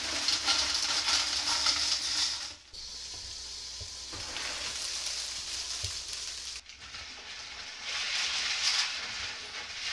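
Ice cubes poured from a bag into a large enamel-coated steel pot, clattering and rattling, stopping after about two and a half seconds. Water is then poured steadily over the ice, and near the end the ice water is stirred with a wooden spoon, the cubes knocking together, to make an ice bath.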